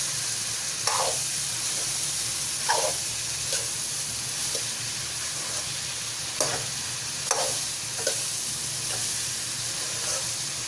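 Chopped gourd and masala sizzling in a steel kadhai as a spoon stirs them, the spoon scraping and clinking against the pan several times.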